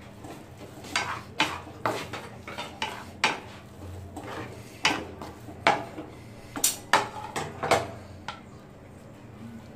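A black spatula scraping and knocking against a metal frying pan while stirring a dry vegetable filling: a quick, irregular run of clatters and scrapes that starts about a second in and stops shortly before the end.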